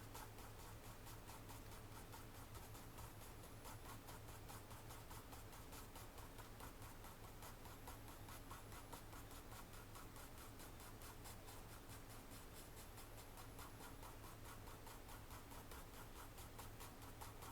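Faint graphite pencil scratching on paper in quick, short repeated strokes, several a second, over a low steady hum.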